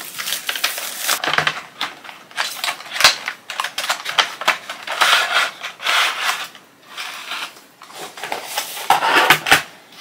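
Clear plastic shrink wrap crinkling and crackling as it is peeled off a box and crumpled, then the rustle and scrape of cardboard and plastic packaging as the box is opened and the pencil tray slid out.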